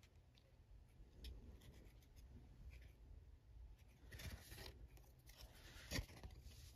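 Faint handling of trading cards: cards sliding and rustling against each other and a mat, with a brushy rustle a little past four seconds and a soft tap about six seconds in.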